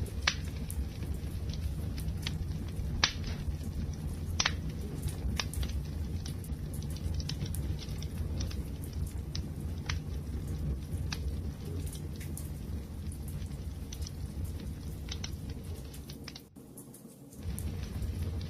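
Wood fire crackling: a steady low rumble of burning with sharp pops and snaps scattered irregularly, the loudest about 3 and 4.5 seconds in. The sound dips away briefly shortly before the end, then comes back.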